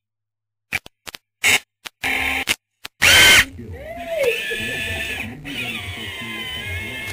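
Short stop-start whirs of a VEXplorer robot's electric motors, the loudest just after three seconds in. After that a steadier sound with several wavering tones carries on.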